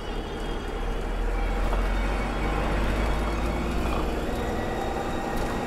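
Bus engine running and road noise inside a moving sleeper coach: a steady low rumble that grows a little louder about a second in.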